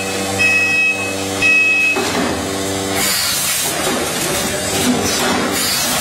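Automatic rotary premade-pouch packing machine running: a steady hum from its drive, with two short high beeps in the first two seconds. From about three seconds in, bursts of compressed-air hiss and light clicks from its pneumatic grippers and cylinders join in.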